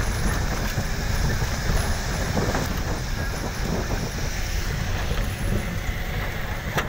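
Steady rumble of a vehicle driving over a rough gravel road: engine and tyre noise heard from on board, with a short knock near the end.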